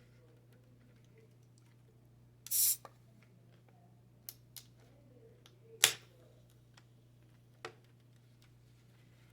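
Crisp crunches of bites into a raw cucumber: one short crackling crunch about two and a half seconds in, then a few sharp single snaps, the loudest near the middle.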